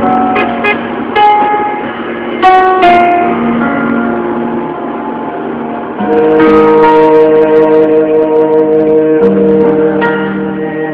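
Music: a mellow track with short picked and keyboard notes, then from about six seconds in it grows louder with long held chords.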